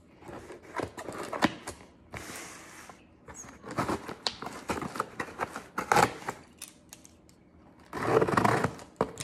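Scissors cutting and scraping along the packing tape of a cardboard shipping box: irregular snips, clicks and rasps on the cardboard, with a louder stretch of rasping noise near the end.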